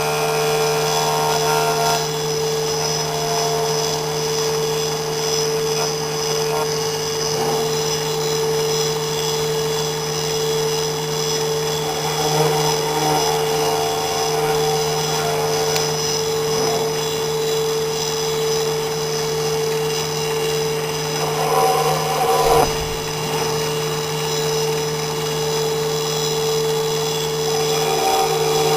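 CNC engraving machine running with a steady, high whine. There is a brief louder change a little over 20 seconds in.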